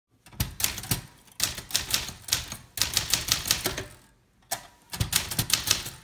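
Typewriter keys striking the platen in quick runs of clicks, about five or six a second, with short pauses between words and a longer pause about four seconds in, as text is typed on a 1971 Sears Newport typewriter built by Messa.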